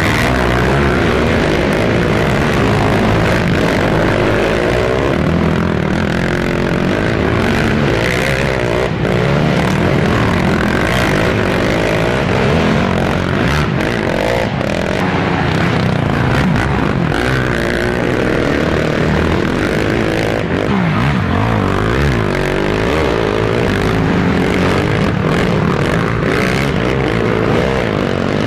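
Off-road racing ATV engines revving hard, their pitch rising and falling with the throttle.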